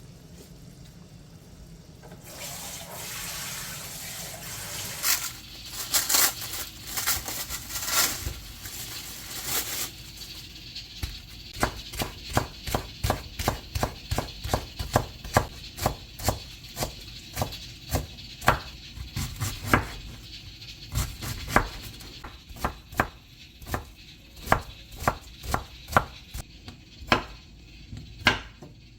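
Water running from a kitchen tap for several seconds, then a knife chopping on a cutting board in a long, steady run of sharp strikes, about two a second.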